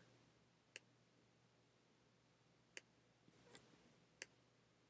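Near silence, broken by about five faint, scattered clicks from working a computer's pointer.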